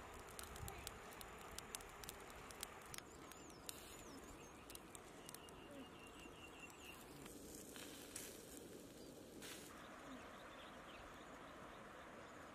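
Near silence: faint outdoor ambience with a low hiss, a few soft clicks in the first seconds, then brief high bird chirps and a short rapid trill of repeated notes around the middle.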